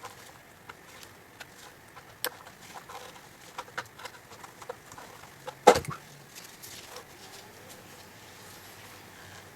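Scattered small metal clicks and taps, with one sharper knock a little past halfway, from a tool prying at the sealed thin-aluminium case of an ECU.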